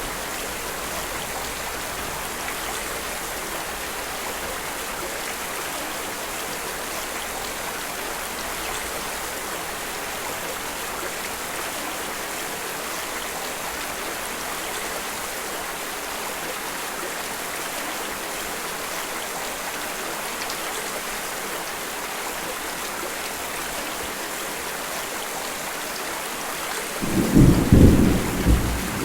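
Steady rain falling, an even hiss, with a low rumble of thunder breaking in near the end as the loudest sound.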